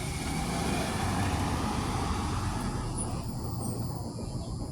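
Low rumbling noise that swells about a second in and eases off after about three seconds, the kind of mysterious rumble the recorder calls a growling noise that is getting louder.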